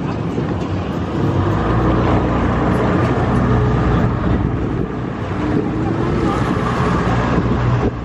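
Motorboat running under way: a steady engine drone mixed with wind buffeting the microphone.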